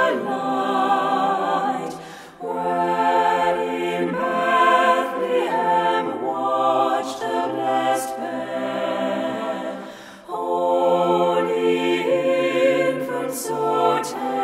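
Choir music: many voices singing slow, held notes in long phrases, breaking briefly about two seconds and ten seconds in.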